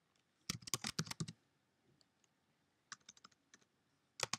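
Computer keyboard being typed on in short bursts: a fast run of keystrokes about half a second in, a few scattered keys around three seconds, and a couple more near the end.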